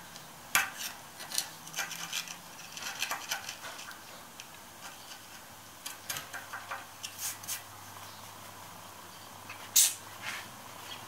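A pointed steel pick scraping and picking at set glue on a bronze-patched shaper rocker arm, in short irregular scratches and clicks; the glue is hard but not rock hard. There is a sharper metallic click near the end.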